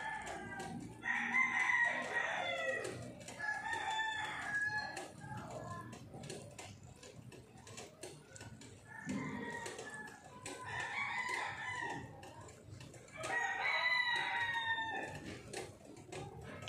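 An animal calling repeatedly: about five long pitched calls.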